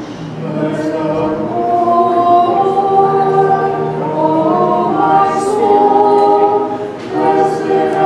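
Orthodox church choir singing a cappella: several voices holding long chords together, coming in about half a second in, with a short break near the end before the singing resumes.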